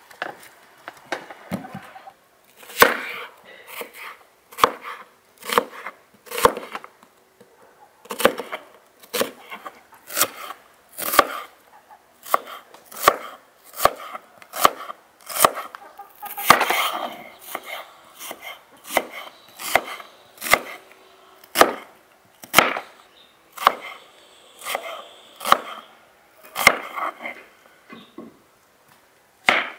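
Kitchen knife slicing peeled onions on a wooden cutting board, each stroke ending in a sharp knock on the board, about one cut a second.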